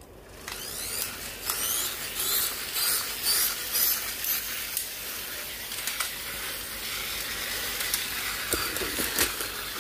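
Pull strings of two Mechnimals battle toys yanked in quick succession, each pull a short falling whir, then the wound-up toys running across the tile floor with a steady whirring hiss and knocking together near the end.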